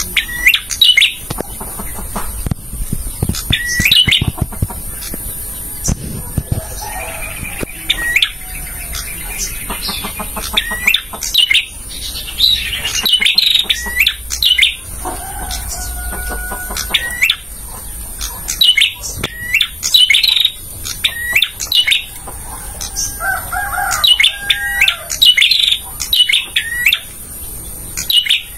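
Male prenjak (a prinia) singing: clusters of short, sharp, quick chirps repeated every second or so without pause, with a few lower notes mixed in now and then.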